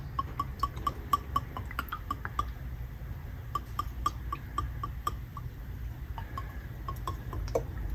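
Marvel Mystery Oil glugging from its bottle as it is poured into the open cylinders of a seized engine: a run of quiet, even clicks about four a second, stopping twice briefly.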